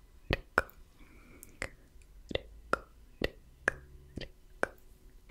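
Slow, wet mouth sounds close to the microphone: about nine separate tongue clicks and pops of the 'tk' kind, roughly two a second, with a soft hiss about a second in.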